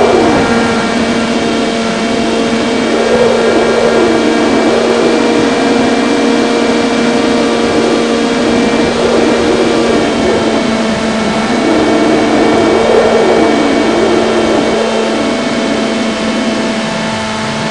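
Electric motor and propeller of an FPV RC plane in flight, heard through its onboard microphone as a steady hum with wind rushing past. A pitch wavers up and down every second or two.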